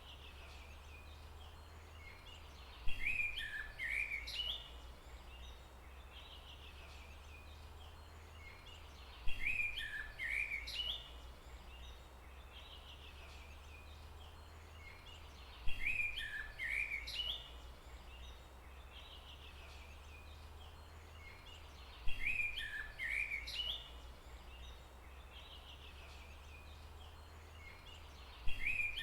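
A songbird singing the same short phrase of quick, bending notes five times, about every six and a half seconds. Each phrase opens with a sharp, loud note. A steady low rumble runs beneath.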